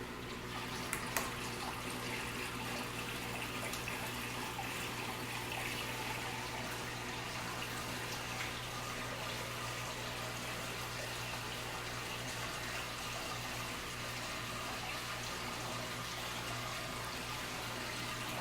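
Water running and splashing steadily through an Odyssea aquarium canister filter being primed and run, over a constant low hum. A single click about a second in.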